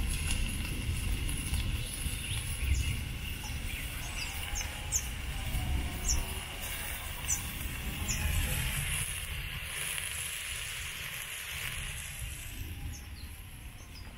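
Outdoor rural ambience: a low rumble of wind on the microphone under a steady high hiss, with short high chirps scattered through.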